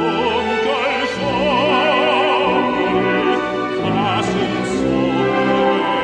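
Tenor singing a Korean art song in a full operatic voice, the held notes carrying wide vibrato, over accompaniment.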